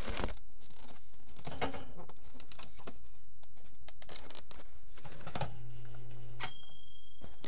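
Irregular clicks and rustles from a handheld camera being moved and handled close up. A short steady buzz comes in about five and a half seconds in, followed by a thin high tone near the end.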